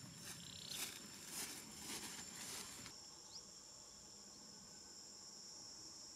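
Bare feet swishing through dry grass, about five steps, that stop about three seconds in. A steady high insect drone runs underneath throughout, with one faint short chirp after the steps end.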